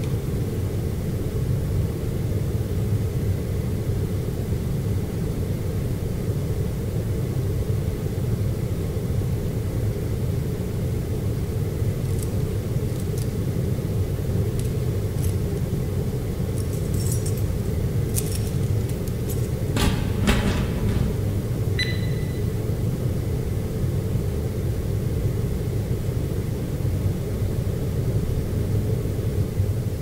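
Library room ambience: a steady low rumble, with scattered small clicks, a brief clatter about twenty seconds in and a short high tone just after.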